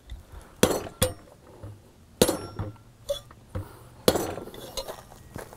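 Sharp metal-on-metal taps, four strong ones and several lighter, as a new wheel seal is tapped down into a motorcycle wheel hub where it sits a little high.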